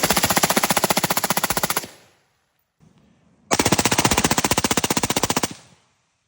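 Rifle fitted with an Atrius forced reset selector firing two rapid strings of shots, each about two seconds long, the second starting about a second and a half after the first ends.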